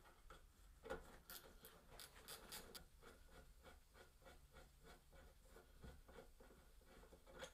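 Socket ratchet clicking as it turns a bolt, in quick even strokes of about four or five clicks a second, with a few sharper metallic clicks before the steady run.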